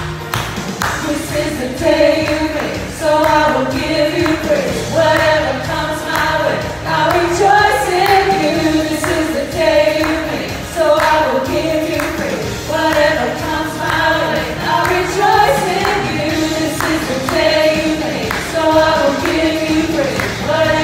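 Church worship band playing a song, with several voices singing the melody over a steady beat.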